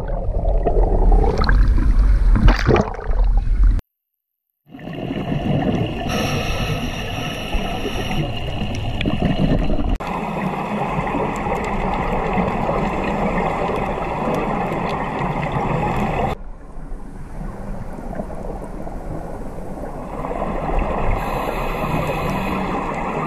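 Underwater sound heard through a camera housing: first a few seconds of loud splashing and turbulence as the camera goes under. After a brief silence comes a steady muffled hiss and rumble with faint even high-pitched tones, which changes abruptly twice.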